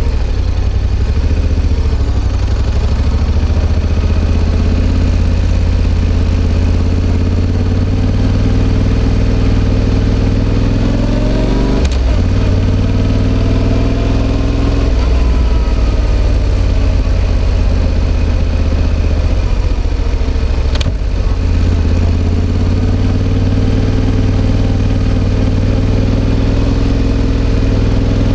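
Yamaha XSR700's CP2 parallel-twin engine running through an SP Tadao Power Box Full RS aftermarket full exhaust, ridden at low speed in traffic, the engine note rising and falling gently. Twice the note breaks off briefly with a click and then picks up again.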